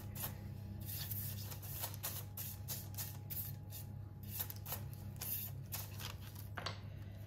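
Bristle pastry brush sweeping excess rice flour off the floured top of a proofed sourdough loaf: a run of quick, soft, irregular brushing strokes that stop near the end.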